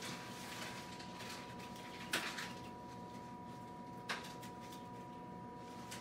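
Two short sharp knocks about two seconds apart, the first the louder, over a faint steady high hum.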